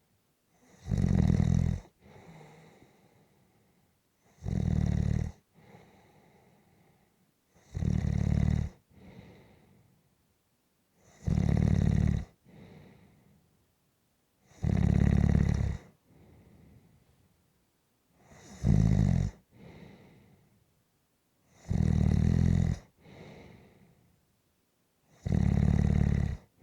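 Steady, regular snoring: a loud snore about every three and a half seconds, each lasting about a second and followed by a quieter breath.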